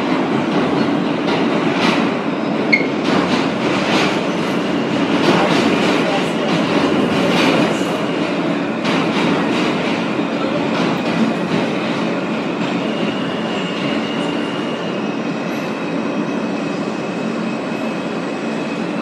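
Ride noise inside an R160 subway car in motion: a steady rumble of steel wheels on the track, with rapid clicks over rail joints in the first half. A thin, steady high whine comes in about halfway through.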